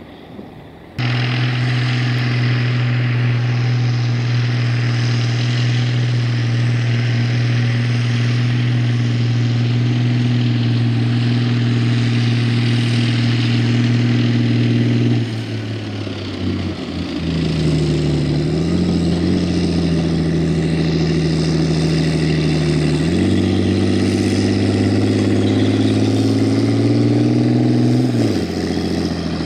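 A vehicle engine running at steady revs, cutting in abruptly about a second in; about halfway through the revs drop and shift, step up again a little later, and fall back near the end.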